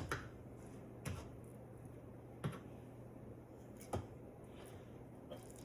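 A few light, sharp clicks about a second or more apart, over a faint steady low hum.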